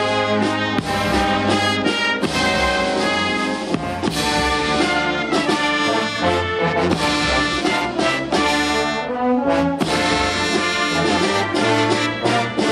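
Military brass band playing a national anthem in slow, sustained chords.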